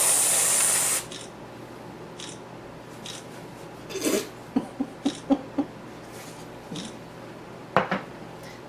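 Aerosol can of whipped cream spraying with a loud hiss, cutting off about a second in. A few faint short sounds follow, and a click near the end.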